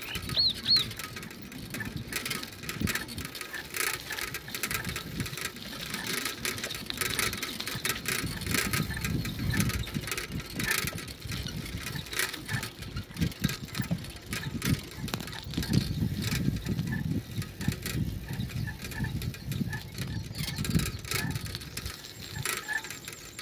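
Irregular rattling and clicking from a vehicle travelling over a rough dirt road, over a low uneven rumble that swells and fades.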